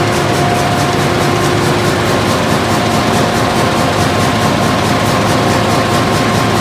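TCY NB5 flexo folder gluer running at production speed: a loud, steady machine roar with a few steady hums over it and a fast, regular clatter of about four to five beats a second.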